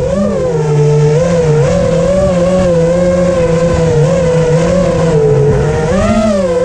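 Five-inch FPV freestyle quadcopter's four Brother Hobby Returner R4 2206 2300KV brushless motors whining, the pitch wavering up and down constantly with the throttle and rising briefly near the end.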